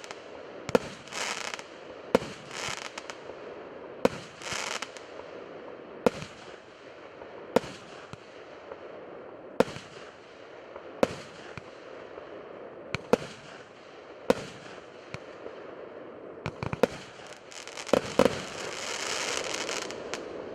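Consumer fireworks battery (Red Fox D7430 cake) firing shot after shot, a sharp bang every second and a half to two seconds, several of them trailed by crackling as the comets break into crackling stars. A long, dense crackle fills the last couple of seconds.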